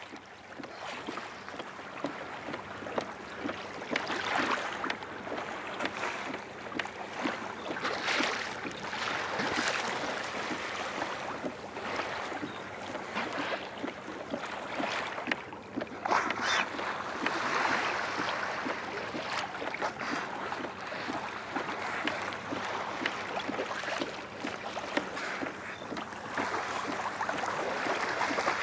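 Small waves lapping and splashing against a kayak's hull, with many small ticks of water and louder surges every few seconds.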